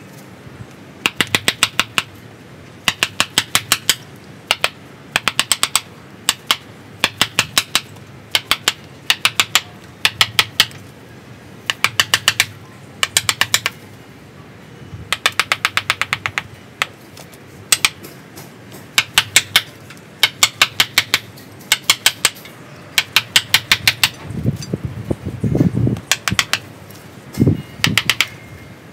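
Wooden mallet tapping a small hand chisel into the wood of a bonsai trunk, carving deadwood. The taps are sharp and come in quick runs of about five to eight, with short pauses between runs.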